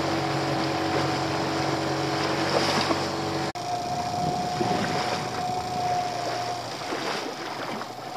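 Small open fishing boat's engine running steadily under way, with wind on the microphone and water rushing along the hull. About halfway through, the sound breaks off sharply and resumes with a steadier, higher-pitched engine tone.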